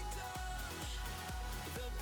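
Background music with a steady beat and sustained synth tones.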